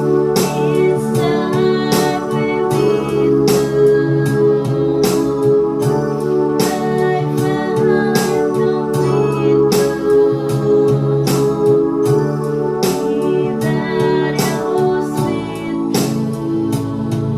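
Music with sustained keyboard chords and a regular beat, with a voice singing over it.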